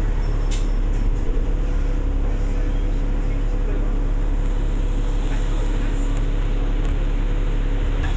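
A bus running, heard from inside the passenger cabin as a steady low rumble with an engine hum, and a few light clicks or rattles about half a second and a second in.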